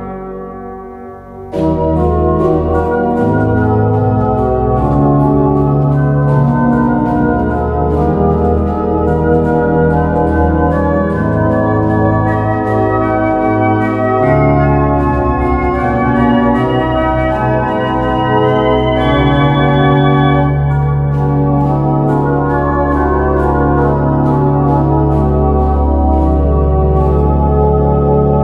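Home organ playing a sampled Domkerk Utrecht pipe organ: a hymn arrangement in sustained full chords with a deep pedal bass. The sound thins out briefly about a second in, then the full chords resume.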